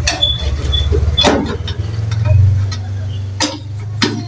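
A few sharp clicks and knocks of a screwdriver working the screws on a water dispenser's metal back panel, over a steady low hum.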